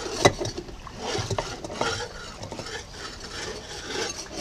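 Steel propeller shaft being drawn out of a yacht's saildrive leg, clinking and scraping against the metal housing: one sharp clink just after the start, then several lighter clinks about a second in.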